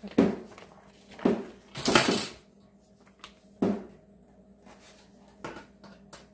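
Wire deep-fryer basket and its metal handle being handled: a handful of short knocks and clinks, with a longer scraping rattle about two seconds in.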